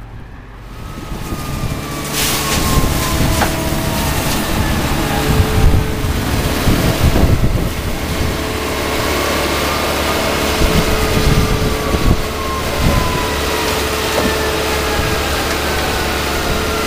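Elgin Pelican street sweeper running with its hopper lifted and tipped, engine and hydraulics going steadily as the hopper dumps its sweepings into a rear-loading garbage truck. The sound builds over the first couple of seconds, with thin whines that slowly fall in pitch.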